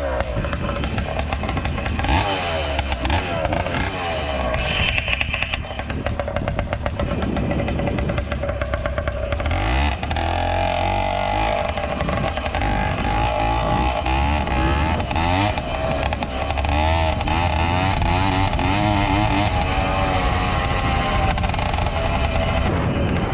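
Zeda80 case-reed 80cc two-stroke motorized-bicycle engine running, its pitch rising and falling as it is revved up and down.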